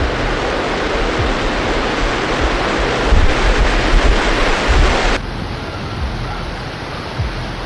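Floodwater rushing and roaring with a low rumble underneath. About five seconds in it cuts abruptly to a quieter, duller rush of water.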